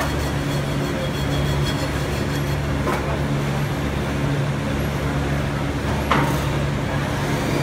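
Multihead weighing and packing machine running: a steady machine hum with a sharp click about three seconds in and a louder one about six seconds in.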